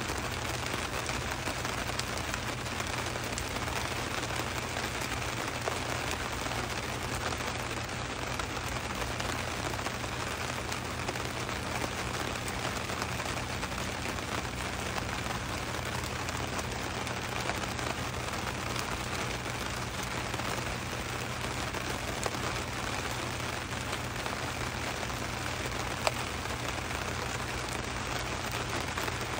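Steady rain falling: an even hiss with scattered drop taps, and a few sharper taps, the sharpest about 26 seconds in.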